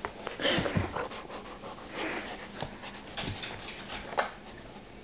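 Puppy panting and snuffling right at the microphone while it plays at a sleeve, in a few breathy surges mixed with fabric rustles and small clicks.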